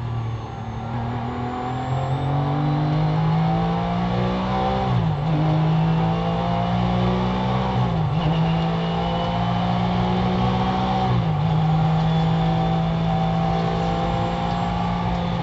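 Porsche 911 GT3 race car's flat-six engine, heard from inside the cockpit, accelerating hard out of a corner. The revs climb and drop sharply at three quick upshifts, about five, eight and eleven seconds in, then hold high and steady down the straight.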